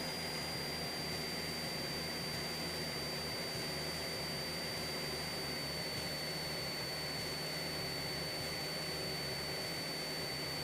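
Steady electronic hiss with a thin high-pitched whine and a faint low hum on a light aircraft's intercom audio feed. The level does not change at all.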